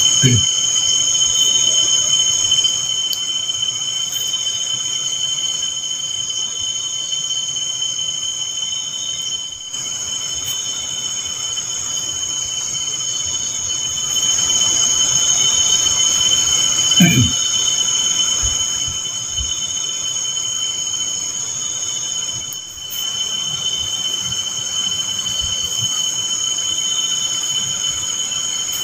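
Night insects chirring steadily at several high pitches. A brief sound falling in pitch cuts in once at the start and again about 17 seconds in.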